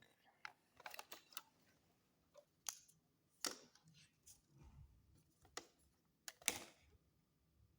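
Faint, scattered sharp clicks and ticks over near silence, about a dozen of them at uneven spacing, the loudest about six and a half seconds in.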